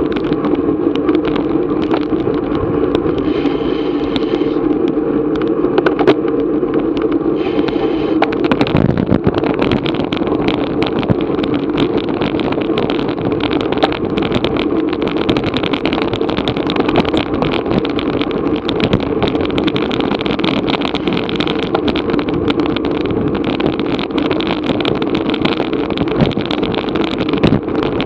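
Steady rush of wind and road noise picked up by a bicycle-mounted action camera while riding at speed, with many small ticks and rattles throughout.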